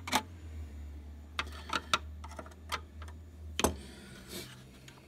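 Irregular light clicks and taps of a metal tool working against the plastic housing of a Snap-on Verus scan tool being taken apart, over a low hum that stops a little past three and a half seconds in.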